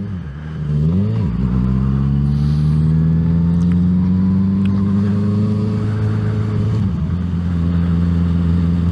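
Motorcycle engine accelerating, its pitch rising steadily for several seconds, dipping briefly at a gear change about seven seconds in, then running steadily, heard through a microphone tucked in the rider's helmet cheek pad.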